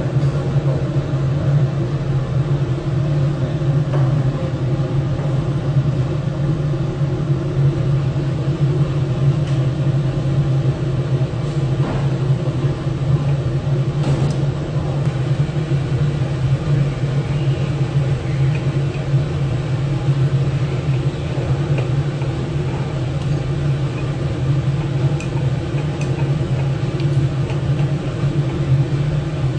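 Laboratory fume hood's extraction fan running with a steady, loud low hum.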